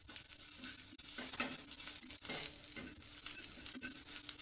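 A wooden spatula stirring sliced onions and greens frying in a little oil in a pan: a steady light sizzle with irregular scraping strokes of the spatula against the pan.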